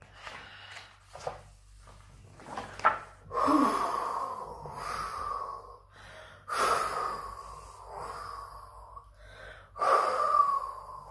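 A woman's voice imitating the howling wind of a snowstorm: three long, breathy 'hoooo wooooo' calls, each sliding slightly down in pitch.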